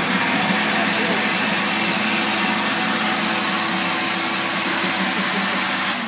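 Electric hand dryer running: a steady, loud rush of blown air over a low motor hum.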